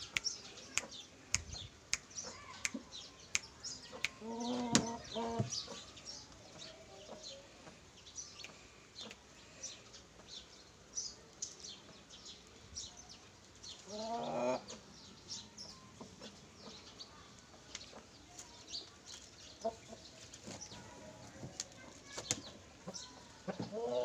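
Chickens clucking: two short calls, about five seconds in and again near the middle, over many short high chirps throughout.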